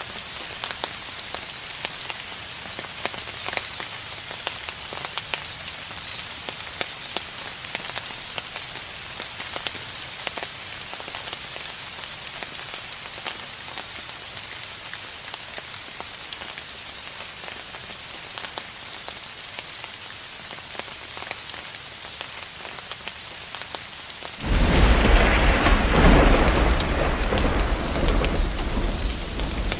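Steady rain falling, with many small drops pattering. Near the end a rumble of thunder sets in suddenly, the loudest sound here, and keeps rolling on.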